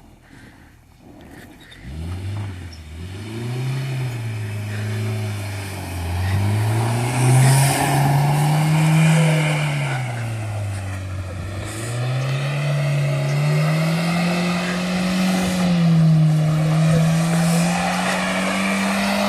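Honda CR-V's engine revving up and down over and over as the car is driven through snow, starting about two seconds in and climbing in pitch toward the end.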